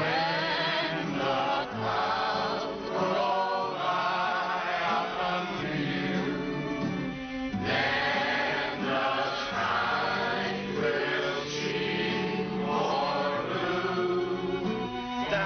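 Several voices singing together in chorus, with a short break about halfway through.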